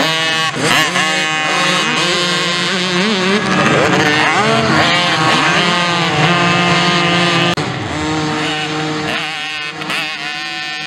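Several 55cc mini motocross bikes revving hard, their small engines rising and falling in pitch as they are worked through a dirt turn close by. The engines overlap throughout and ease off a little after about seven seconds.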